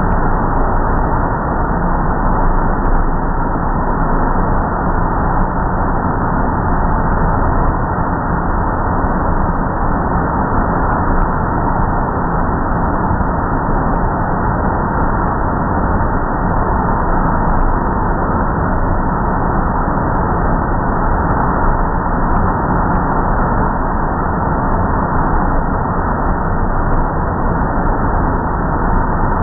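Automatic car wash tunnel's air-dryer blowers running, a loud, steady rush of air with no breaks.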